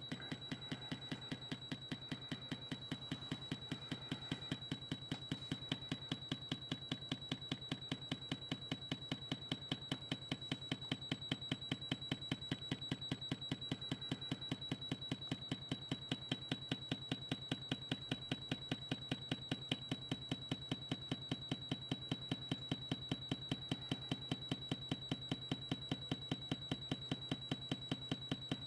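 A 4-inch JBL midrange speaker driven hard by a test signal, its cone pumping out a fast, even train of clicks with a steady high-pitched whine alongside, growing slightly louder toward the end.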